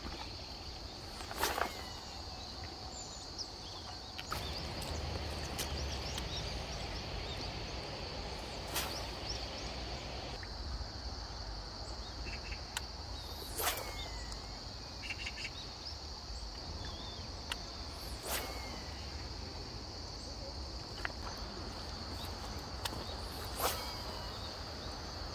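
Steady high-pitched insect chorus over a low rumble, with several sharp clicks spread a few seconds apart.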